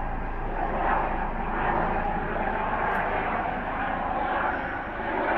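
Eurocopter AS365 Dauphin twin-engine helicopter flying overhead: steady rotor and turbine noise at an even level.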